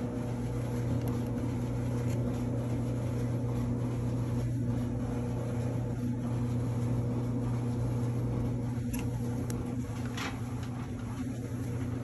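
GE clothes dryer running, a steady low hum with a few faint ticks near the end.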